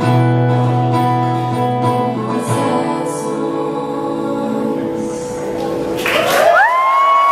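A woman singing live with acoustic guitar accompaniment, holding long notes. About six seconds in, the song ends and the audience cheers, with one long rising whoop.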